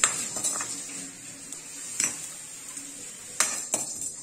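Steel spoon stirring and scraping spice seeds in a dry steel kadai, with a few sharp metal clinks against the pan, about two seconds in and again near the end.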